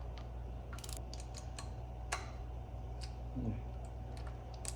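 Scattered light clicks and taps of a hand tool on a screw in a Torqeedo outboard's mount, over a steady low hum. The screw is being backed off slightly to ease an over-tight turning friction.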